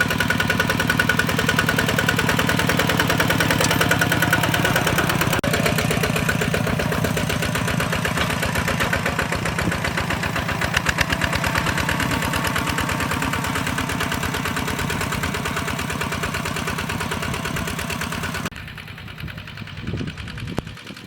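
Hand tractor engine running steadily with evenly spaced knocking pulses; the sound drops away abruptly near the end.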